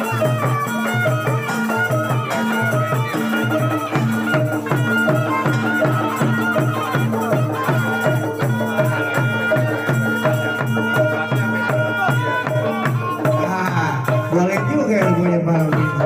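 Traditional Betawi percussion music accompanying a silat display: drums beating a fast, even rhythm of about three strokes a second, with a steady tone held above it. The rhythm breaks off near the end.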